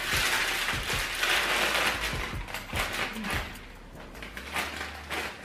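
Plastic snack bag crinkling as it is opened and handled: a dense crackle for the first three seconds or so, then quieter scattered rustles and clicks.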